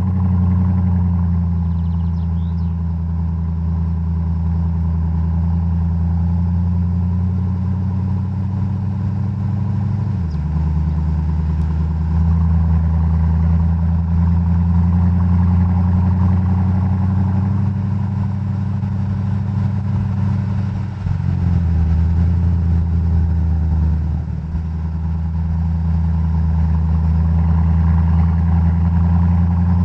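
Mercedes-Benz E55 AMG W211's supercharged 5.4-litre V8 running steadily while driving, heard through an exterior microphone. The engine note shifts abruptly about ten seconds in and again around twenty-one and twenty-four seconds in.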